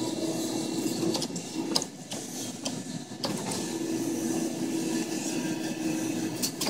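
Claw machine's motorised gantry whirring with a steady hum in two spells, from the start to about a second in and again from about three and a half to six seconds in, as the claw is moved, with a few sharp clicks between.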